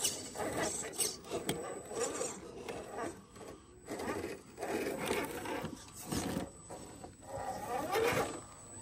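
Scale RC crawler truck scraping and rubbing its way over rock, with irregular scrapes and knocks.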